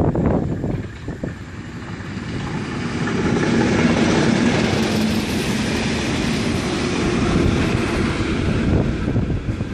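Train of flat track wagons hauled by Class 73 electro-diesel locomotives passing close by. The sound builds over the first few seconds as it approaches, then becomes a loud steady rush of wheels on rails with a low hum while the wagons and the rear locomotive go past, easing near the end.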